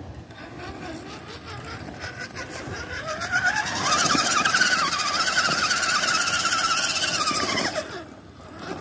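Redcat Everest 10 RC rock crawler's electric motor and drivetrain whining under throttle as it climbs broken concrete. The whine rises in pitch about three seconds in, holds steady and loud, then cuts off near the end.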